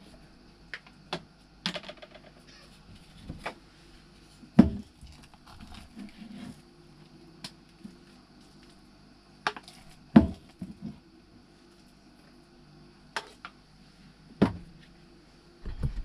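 Kitchen clatter of cookware and a utensil: scattered sharp clicks and knocks as cooked noodles are dished from a pot onto a plate, with a few louder knocks spaced several seconds apart.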